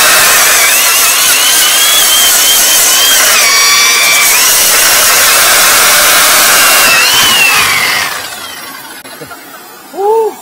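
Electric core drill boring a 125 mm hole through a red-brick wall, with a vacuum cleaner nozzle held at the bit to suck up the dust: a loud steady rush with a wavering whine, cutting off about 8 seconds in. Just before the end there is one short rising-and-falling tone.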